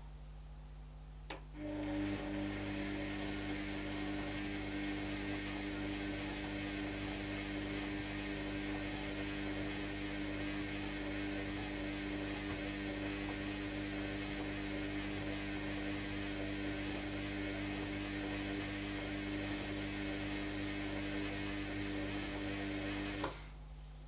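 Bush WMDF612W washing machine in its wash cycle: after a short pause and a click, the drum motor turns the drum with a steady hum for about twenty seconds, then stops suddenly near the end.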